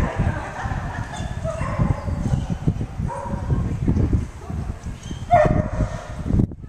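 A dog barking several times, the clearest bark a little past five seconds in, over a steady low rumble.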